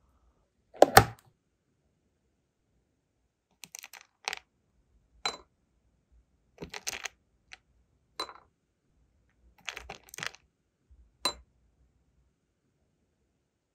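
Hard little sealing-wax pieces clicking and clinking against each other and a plastic compartment box, in separate short bursts every second or so, with one louder knock about a second in.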